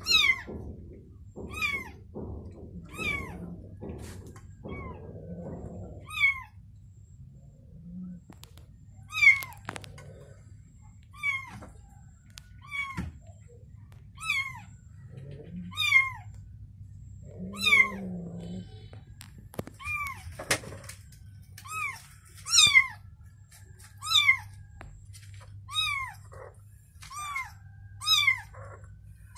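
A young kitten crying over and over: short, high-pitched mews that fall in pitch, about one a second. Between them come a few lower, longer calls and a couple of knocks.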